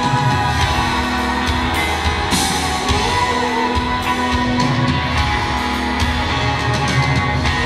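Live rock band playing loudly: electric guitar over bass and drums, with cymbal hits.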